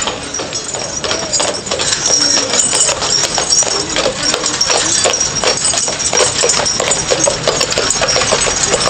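Hooves of two Shire horses clopping on the road as they pull a horse-drawn omnibus past at close range, with a dense, irregular run of knocks and the rattle of the carriage and harness.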